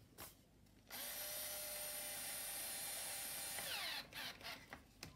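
Small cordless electric screwdriver runs for about three seconds, driving a screw into the stroller's plastic brake housing during reassembly. Its pitch falls just before it stops. A few light clicks follow.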